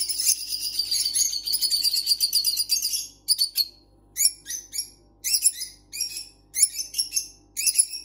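Rosy-faced lovebird screaming: a fast run of shrill chirps for about three seconds, then short separate screeches, often two close together, about once a second. These are the calls of a bird frightened after being moved to a new cage, which the keeper expects to settle down.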